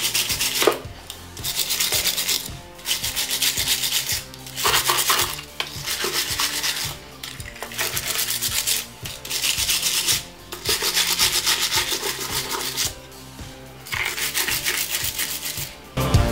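Scrubbing a car battery's terminal posts clean, a rough rubbing scrape in repeated bouts of about a second and a half with short pauses between them.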